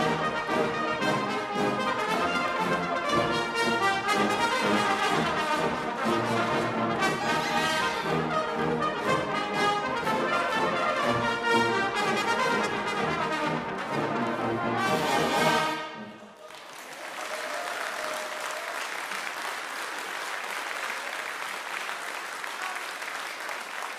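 Brass band playing the last bars of a hornpipe, ending on a held final chord about two-thirds of the way through, then audience applause.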